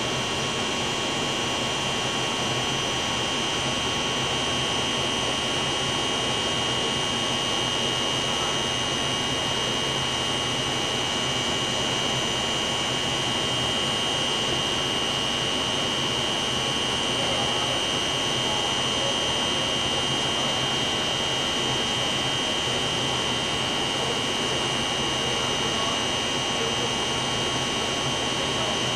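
Steady machine noise: a constant rushing hum with a high whine held on one pitch above it, unchanging throughout.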